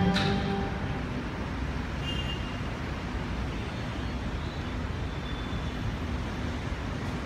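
The last sustained chord of a recorded anthem fades out within the first second. After that comes a steady, even outdoor background noise with no distinct events.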